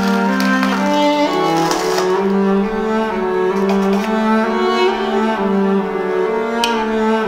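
Background music of slow, sustained notes, the low notes changing pitch in steps.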